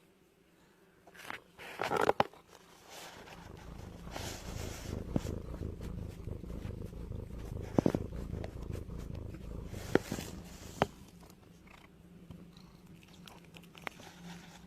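A domestic cat purring, a steady low rhythmic rumble that starts about three seconds in and grows fainter near the end, with a few brief clicks over it.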